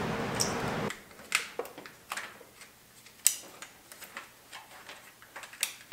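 Wires and plastic split wiring loom being handled in an engine bay: scattered sharp clicks and light rustles, the loudest about three seconds in. A steady noise cuts off sharply about a second in.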